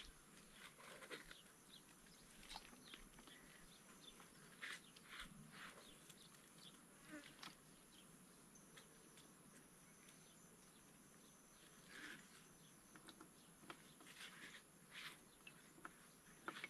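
Near silence: faint, irregular soft clicks and rustles from a mesh shrimp sieve being handled at the water's edge, over a faint steady high insect hum.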